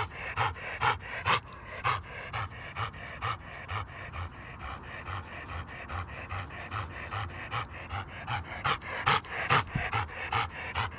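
A dog breathes fast and hard in a steady rhythm, about three breaths a second, with a few louder breaths around nine to ten seconds in. It is laboured breathing, which the owner takes for trouble in the dog's lungs.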